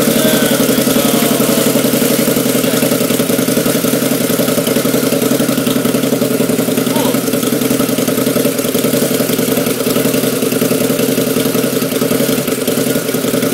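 Harley-Davidson V-Rod's liquid-cooled V-twin idling steadily through a Mark Daynes custom exhaust, an even, pulsing exhaust note that does not rev.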